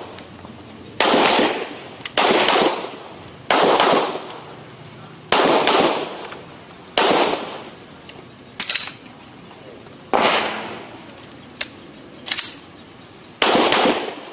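Pistol shots fired one at a time, about nine loud reports spaced one to two seconds apart, each trailing off briefly, with a few fainter pops between them.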